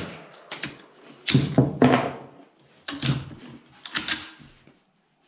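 A string of rifle shots from a scoped rifle, each a sharp crack with an echoing tail under the range roof, several coming in quick succession before the shots stop shortly before the end.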